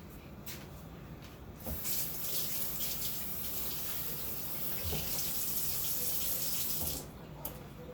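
Kitchen tap running into the sink for about five seconds, a steady rush of water that comes on sharply a couple of seconds in and shuts off near the end.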